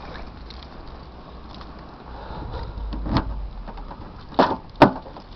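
Car running, a low steady rumble, with a thump about three seconds in and two sharp knocks near the end.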